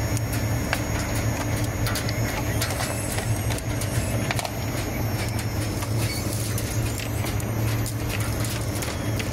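Fluidization IQF tunnel freezer running, its air blowers and mesh conveyor belt making a steady machine drone with a strong low hum. A few light clicks sound over it.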